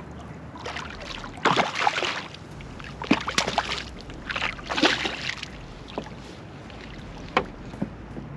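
A hooked striped bass thrashing and splashing at the kayak in several short bursts while it is being unhooked, with a few sharp knocks between.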